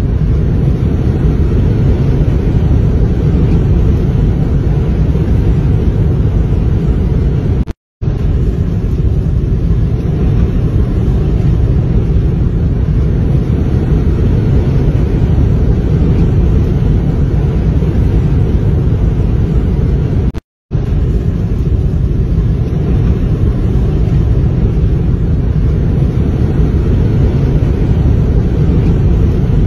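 Steady low rumble of wind and road noise heard from inside a moving car in a rainstorm. It cuts out completely twice for a moment.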